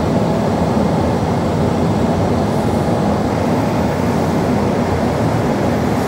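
Forced-air furnace blower running steadily: a constant, even rush of air through the furnace and ductwork.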